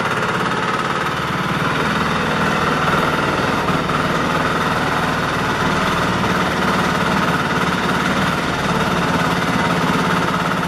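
Stationary diesel engine of a homemade 4x4 farm transporter, heard from on board, running steadily as the machine drives along. The even, knocking diesel beat stays at one speed throughout.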